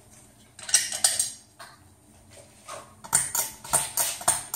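Metallic clicking and rattling of a ceiling fan's pull chain and switch being worked: a few clicks about a second in, then a quick run of about four a second near the end. The fan motor does not start; the fan is broken though its light works.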